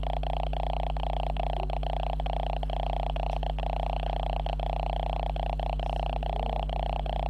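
Steady electronic noise from a camera's faulty audio: a constant low hum under a mid-pitched buzzing drone, broken by frequent brief dropouts several times a second.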